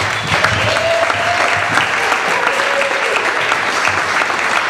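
Audience applauding steadily, many hands clapping at once, to welcome a reader to the stage.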